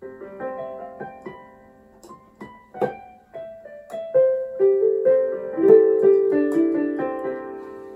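Casio CT-S300 keyboard played on a piano voice: a string of notes, then notes held and ringing over one another under the sustain pedal, fading out near the end. The held, overlapping notes show the sustain pedal working.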